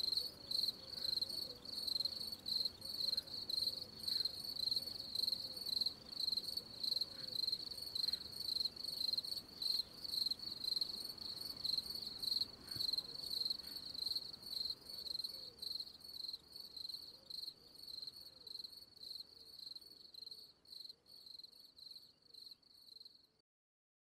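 Cricket chirping in a steady, high, pulsing rhythm of a few chirps a second, growing fainter toward the end and then stopping abruptly.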